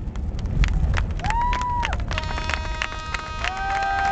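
Fireworks crackling and popping, then horns starting up: a short held blast about a second in, and from about two seconds several horns at different pitches sounding together in a steady, overlapping chorus, typical of boats in the bay sounding their horns at a fireworks show.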